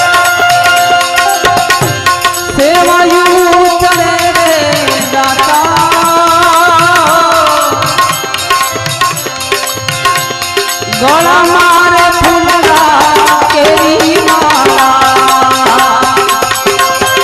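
Gujarati bhajan music: tabla keeping a steady rhythm under a melodic lead that slides up in pitch about two and a half seconds in, wavers, and slides up again about eleven seconds in.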